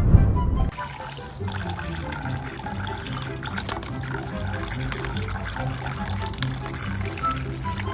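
Running water, like a tap, hissing and splashing over background music with a repeating bass line. A louder, different sound cuts off about half a second in.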